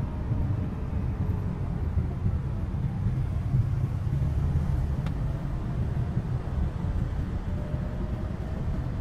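Steady low rumble of a Toyota HiAce van's engine and tyres heard from inside its cabin while driving.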